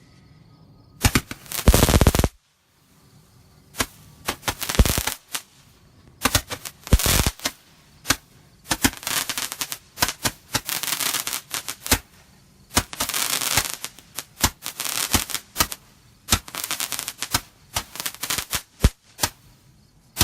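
Three 10-ball Roman candles (comet, magic and crackling types) firing at once: a fast, irregular string of launch pops, sometimes several close together, mixed with stretches of crackling, starting about a second in and going on throughout.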